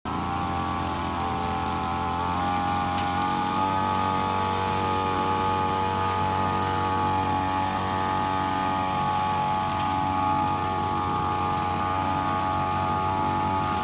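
Small engine of a backpack-mounted power tool running steadily at high speed, with a continuous buzzing whine whose pitch settles slightly about three seconds in.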